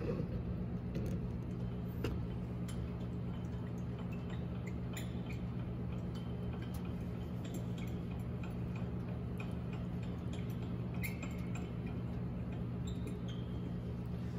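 Steady low electrical hum of a quiet workshop, with scattered faint light clicks and ticks throughout.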